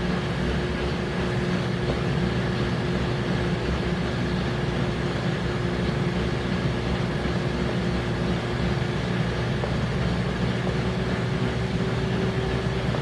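Samsung WA5451AN high-efficiency top-load washing machine in its spin cycle, the drum spinning at high speed with a steady hum and a thin whine that rises slightly in pitch about ten seconds in.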